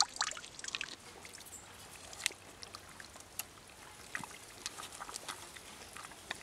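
Faint, scattered clicks and scrapes of a stick being worked into a frog's hole in wet, muddy soil.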